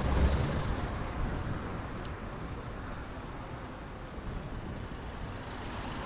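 Car cabin noise while driving slowly along a town street: a steady low engine and tyre rumble.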